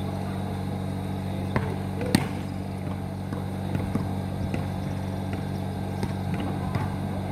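Basketball impacts on an outdoor court: two sharp knocks about half a second apart, a second and a half in, the second the louder, then a few fainter bounces, over a steady low hum.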